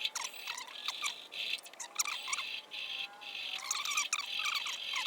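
Steady high insect trilling with many short bird-like chirps over it, cutting off abruptly near the end, like a nature-sound clip laid over the video.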